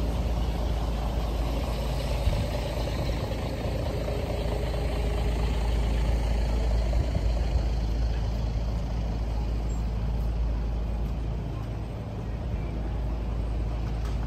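Road traffic along a city street: passing vehicles make a steady low rumble that swells a little around the middle.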